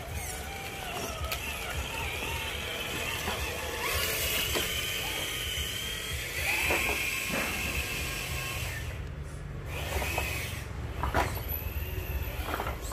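Electric motor and gear train of a Traxxas RC crawler truck whining as it drives, the pitch rising and falling with the throttle. A few sharp clicks come near the end.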